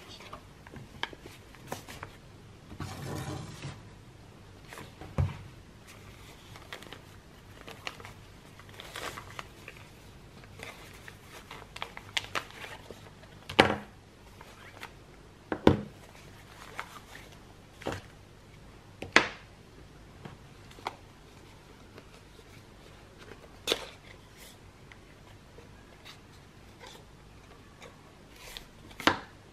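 Hands handling paper and cardboard packaging on a table: soft rustling with scattered sharp taps and knocks as items are set down and moved. A longer rustle comes about three seconds in; the loudest knocks fall about halfway through, and near the end a small cardboard cosmetics box is opened.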